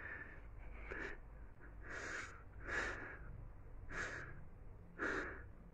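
A man sobbing without words: about six short, breathy gasps and sniffs, roughly one a second.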